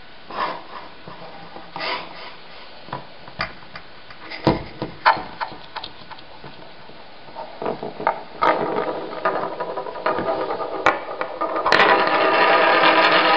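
Poker chips being handled: separate sharp clicks as the chips knock together and against the tabletop. The clicks get busier, and a little before the end they turn into a loud, rapid, continuous clatter.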